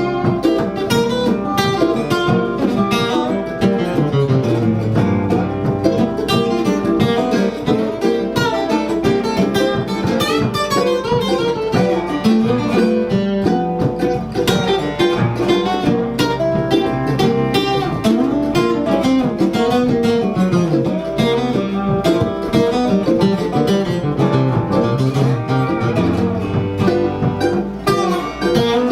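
Instrumental break of an acoustic country song: plucked acoustic guitar and string picking, a continuous run of notes with no singing.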